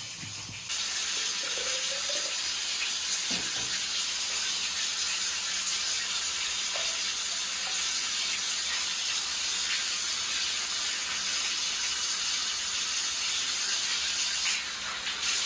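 Tap water running steadily and splashing, starting about a second in.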